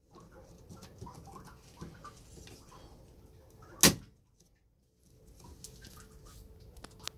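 Plastic VW front badge on a Golf VI grille being worked by hand on its clips: light scraping and small ticks, with one sharp click about four seconds in and a fainter one near the end.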